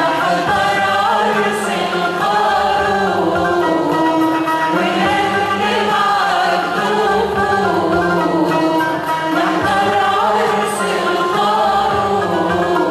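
A choir singing an Arabic Christian hymn (tarnima) with instrumental accompaniment, the voices carrying a melody over a steady low backing.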